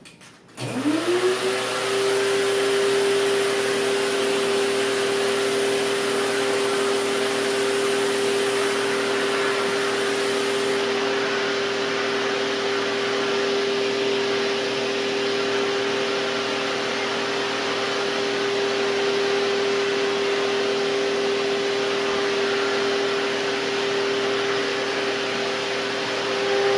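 2003 Hoover TurboPower 5000 canister vacuum cleaner switched on about half a second in. Its motor winds up with a rising whine and then runs at a steady, loud pitch on straight suction, with no power nozzle.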